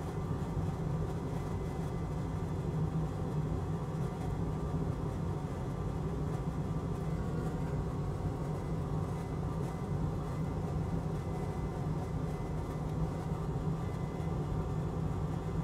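Steady low machine hum with a faint hiss, unchanging throughout, like a fan or other equipment running on the workbench.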